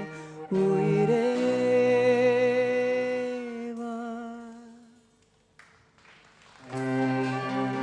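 Live vocal music with string accompaniment: a voice holds a long note with vibrato over sustained strings, then fades to near silence about five seconds in. The strings and voice come back in together near the end.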